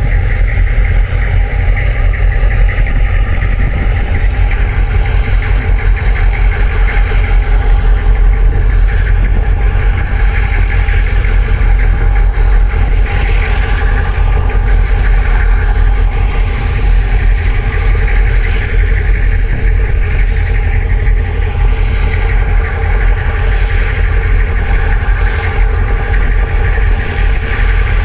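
Diesel engines of a large container ship and the harbour tug alongside it running steadily: a deep rumble with several steady humming tones over it.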